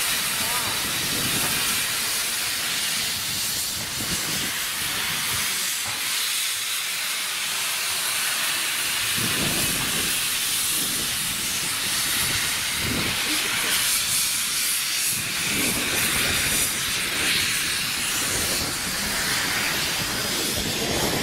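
LMS Jubilee class 4-6-0 steam locomotive 45596 moving slowly with its cylinder drain cocks open, steam hissing out loudly and steadily as condensed water is cleared from the cylinders. Low, irregular beats come through under the hiss in the second half.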